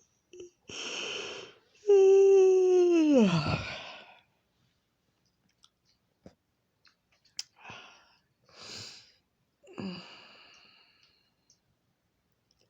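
A woman yawning aloud. She draws in a breath, then holds a loud voiced tone that drops in pitch as it fades. Soft mouth clicks and several quieter breaths follow.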